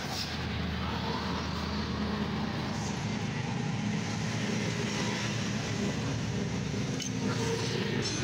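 Steady background traffic noise.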